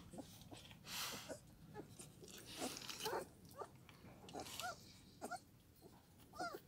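Kangal puppies squeaking and whimpering in short, thin cries, more often in the second half, as they jostle at their mother to nurse, with a soft rustle about a second in.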